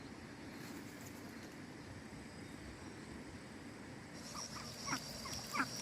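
Faint outdoor background: an insect starts a steady high, pulsing buzz about four seconds in, and short rising chirps come near the end.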